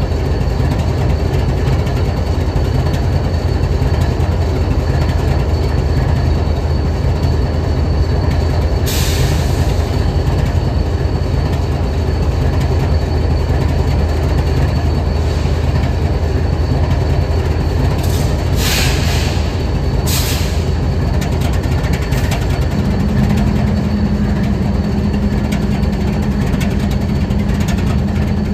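Diesel locomotive engine idling with a steady low hum, heard from above the hood. A few short hisses come around nine seconds in and again around eighteen to twenty seconds in, and a steady higher hum joins about twenty-three seconds in.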